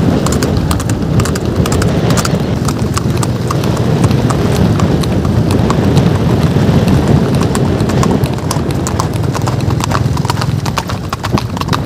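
Several horses' hooves clip-clopping on an asphalt road as the group moves along, the hoof strikes overlapping, growing denser towards the end.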